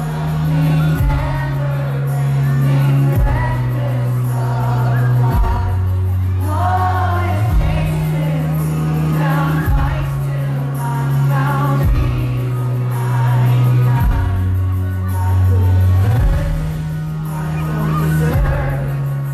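Worship song: group singing over backing music, with a steady bass line that changes note about every two seconds.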